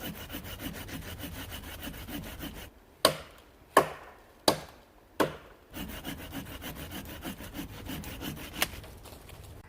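A hand saw cutting wood with quick back-and-forth strokes. About three seconds in it is broken by four sharp strikes on wood a little under a second apart, then the sawing resumes.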